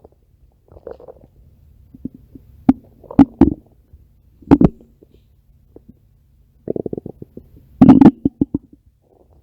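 Stomach growling in irregular gurgles, with a quick rattling run of short gurgles about two-thirds of the way through and the loudest gurgle soon after.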